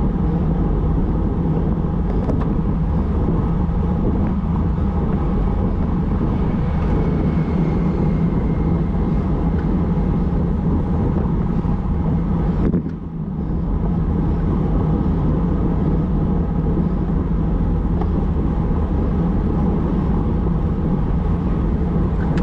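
Steady wind rush on the microphone of a bike-mounted action camera, with the road bike travelling at about 45 km/h; it dips briefly about halfway through.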